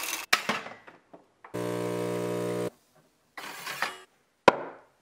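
Automatic espresso machine at work in short separate snatches: a rush of noise, a couple of clicks, a steady motor hum for about a second, another short rush of noise, and a sharp click near the end.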